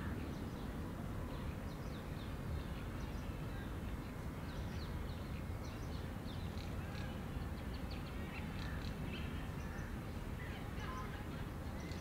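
Outdoor ambience of many small birds giving short, high chirps scattered throughout, over a steady low rumble.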